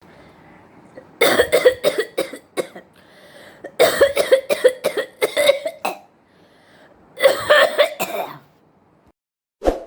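A person coughing in three fits of rapid, forced coughs, several coughs a second, with short pauses between the fits.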